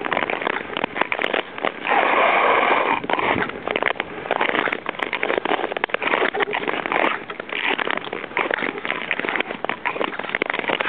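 Long-distance tour skates on bare lake ice: blades scraping and clattering with each stride, with many sharp crackling clicks. A longer continuous scrape about two seconds in.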